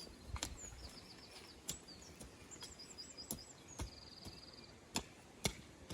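Songbirds singing in quick repeated chirp phrases and a short even trill about four seconds in, with several sharp ticks or taps scattered through, the loudest near the end.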